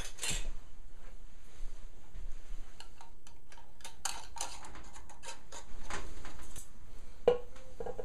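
Metal lid and screw band being fitted and turned onto a glass quart canning jar, with many small clicks and scrapes. Near the end come two sharp metallic clanks, each with a short ring.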